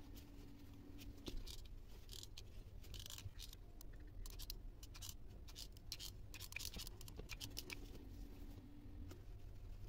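Faint irregular scratches and clicks of a hot soldering iron tip poking and scraping holes into a plastic lid and jar, with the plastic handled between strokes, over a low steady hum.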